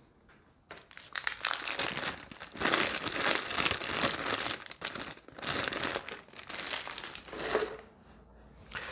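Plastic packaging crinkling and rustling as a packed part is unwrapped by hand. It starts about a second in, goes on in dense crackles, and dies down near the end.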